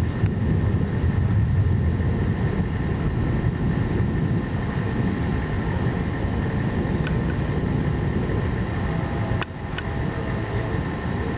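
Steady low rumble of a night thunderstorm, with a sharp click about nine and a half seconds in, after which the rumble drops slightly.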